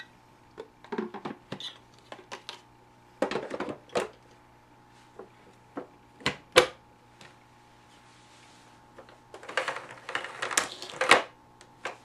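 Hard plastic clicks and knocks as the clear cyclone bin of a Dyson DC05 vacuum is fitted back into the body and the handle is latched down over it, with the motor off. The sharpest knock comes about six and a half seconds in, and a quick run of clatter near the end.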